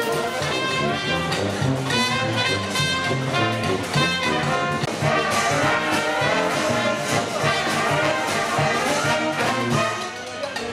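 A banda, a French festive street brass band, playing a lively tune live: saxophones, clarinets and brass over a drum kit and sousaphone, with a steady beat. The music drops in level near the end.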